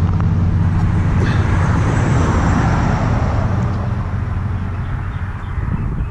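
Road traffic noise: a steady low engine hum with tyre and road noise that swells about two seconds in and fades toward the end, as of a car going by.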